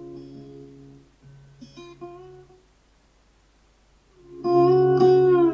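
Music played from a phone through a DIY Amp Camp Amp and a pair of bookshelf speakers, as a test of the amplifier on its new homemade linear power supply. Notes fade out over the first couple of seconds, then there is a short near-silent gap, and the music comes in loud about four seconds in.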